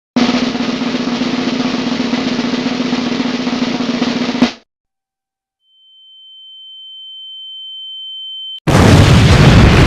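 Sound-effect clips played back to back: a loud, dense rattling noise with a low steady hum for about four and a half seconds, which cuts off; then a single high steady tone that swells in volume for about three seconds; then a sudden loud blast of noise near the end.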